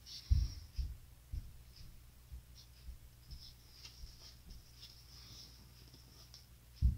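Handling noise from a dump tray being turned over in the hands: light rubbing and scraping of fingers on the tray, with a few low thumps, the loudest just after the start and just before the end.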